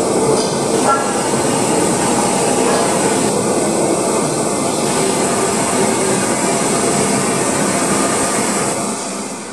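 LNER K4 steam locomotive 61994 'The Great Marquess' moving slowly past close by, with a steady hiss of steam from its open cylinder drain cocks. The hiss eases off a little near the end.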